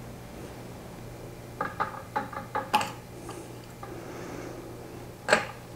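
Quick run of about seven small clicks and clinks as the metal and plastic parts of a floating-head plasma torch mount are handled and taken off the CNC Z-axis, then one sharper knock near the end, over a low steady hum.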